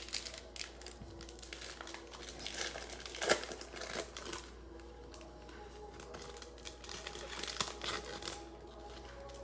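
Plastic-foil trading card pack wrapper crinkling and tearing as a pack is opened and the cards are handled. The crackle is busiest in the first half and sparser after.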